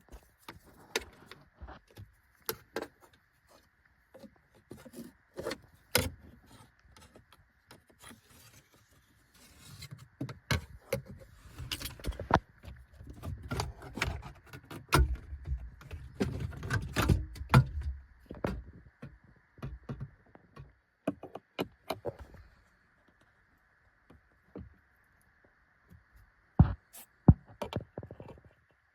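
Irregular clicks, taps and knocks of hard plastic car dashboard trim, busiest in the middle with some low thumps, then a few sharp clicks near the end.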